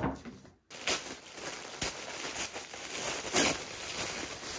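Crinkling and rustling of packaging being handled and opened, irregular, with louder crackles about a second in and again near the end.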